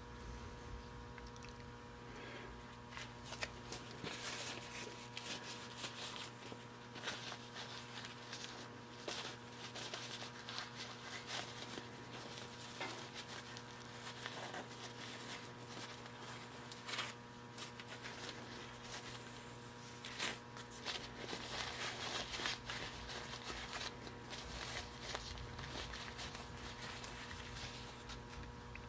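Faint rustling and scattered light clicks of hands handling a cloth rag and a wire-hung part, over a steady electrical hum.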